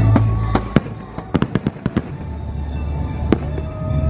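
Fireworks launching and bursting with sharp bangs, including a quick run of cracks about a second and a half in, over the show's music soundtrack.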